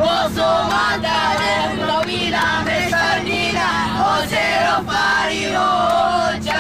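A group of boys singing a rhythmic chant together in short repeated phrases inside a minibus, with a steady hum underneath.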